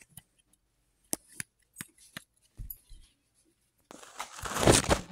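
A few separate plastic clicks as a handheld pencil sharpener is handled, then from about four seconds in a loud, scratchy grinding as a Prismacolor colored pencil is sharpened in it, the blade shaving the wood and lead.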